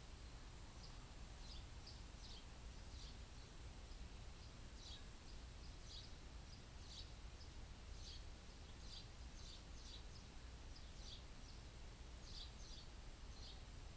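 Faint, short, high-pitched bird chirps repeated irregularly, several a second at times, over a low steady background rumble.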